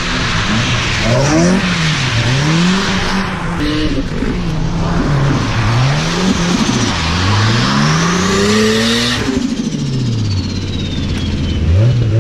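Drift cars sliding on wet asphalt, engines revving hard and dropping again over and over, with constant tyre hiss and skidding. A high whine climbs, then falls away over the last few seconds as a car goes by.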